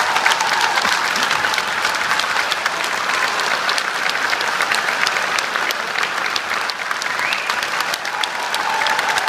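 Large theatre audience applauding, a dense, steady mass of clapping.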